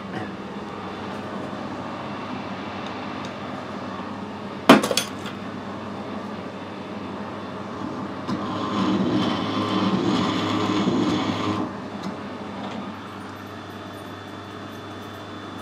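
Metal lathe running with a grooving tool cutting into a case-hardened steel pin: a steady machine hum, one sharp knock about five seconds in, and a louder stretch of cutting noise from about eight to twelve seconds in as the tool works through the hard case. The sound drops back near the end as the spindle stops.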